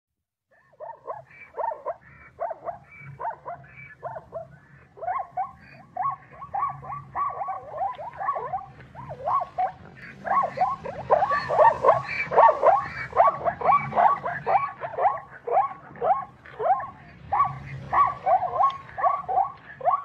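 Plains zebra giving its barking call: a long run of short, high yelps, sparse at first and then coming faster, about two to three a second, and louder from about halfway through.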